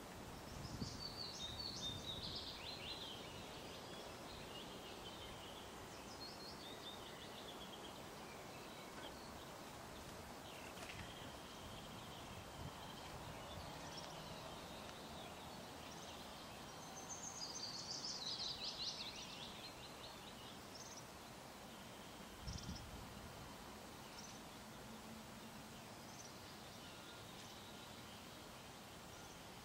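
Wild songbirds singing: short bursts of quick, high chirping song come and go several times, the longest and loudest a little past the middle, over faint outdoor background noise.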